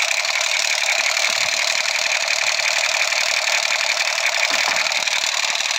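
Battery-operated light-up toy machine gun firing: a steady, rapid electronic rattle that runs without a break.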